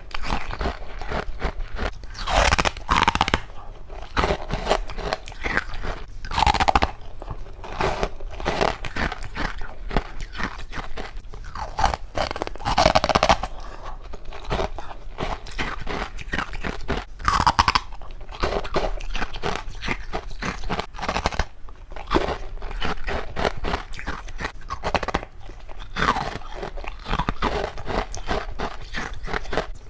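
Someone biting and chewing frozen humidifier frost and passion fruit bites: a steady run of crunching, with about five louder bites spaced several seconds apart.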